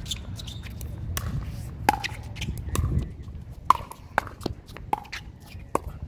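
Pickleball rally: paddles striking a hard plastic ball, a series of sharp pocks about a second apart, each with a short hollow ring.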